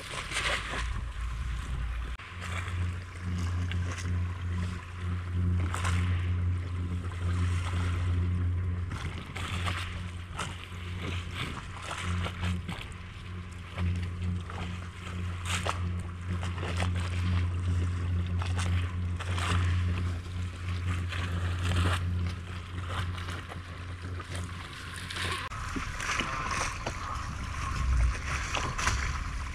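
A boat engine running steadily on the water as a low hum, which fades out near the end, with scattered knocks and clicks over it.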